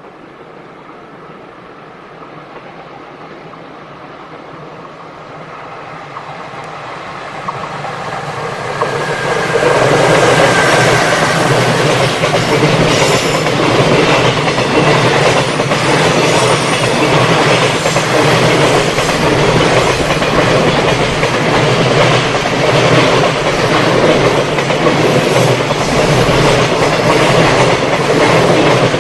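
A freight train approaching on the main line and then running past close by. It grows louder over about ten seconds, then its wagons keep passing with a steady clatter of wheels over the rail joints.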